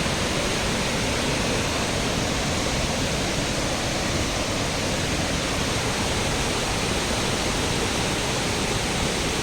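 Steady rush of a large waterfall, an even, unbroken roar of falling water.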